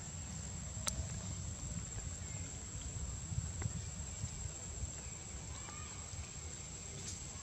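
Outdoor background with a steady low rumble and a constant high thin whine, with a sharp click about a second in and a few faint short calls.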